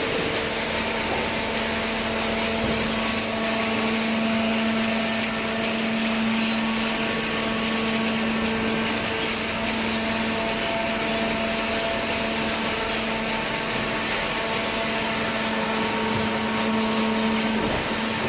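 Industrial cardboard baler running steadily: a constant machine hum with a steady higher whine over a noisy wash.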